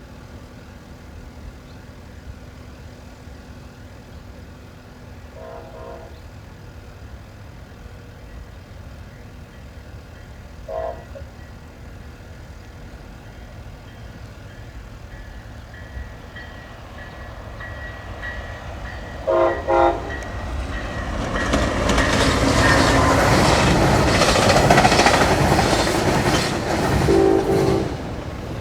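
Siemens SC-44 Charger-hauled passenger train approaching, its horn giving short blasts a few seconds apart, with a quick pair about two-thirds of the way through. It then passes loudly with wheel clatter in the last several seconds.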